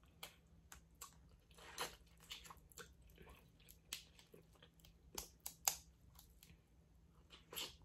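Close-miked eating of boiled crawfish: a scatter of sharp cracks and clicks as shells are broken, with chewing between. The sharpest cracks come about two seconds in, twice a little past five seconds, and near the end.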